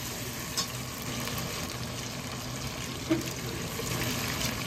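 Potato chunks and cumin seeds frying in hot oil in an aluminium pot: a steady sizzle while a steel ladle stirs them, with a sharp knock of the ladle against the pot about three seconds in.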